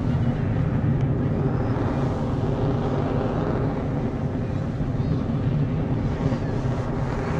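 Fighter jet's engines heard from the ground as it manoeuvres overhead: a steady, deep rumble that holds at one level without any distinct events.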